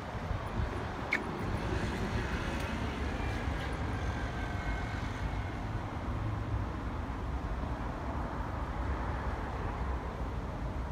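Road traffic: a steady rumble of passing cars.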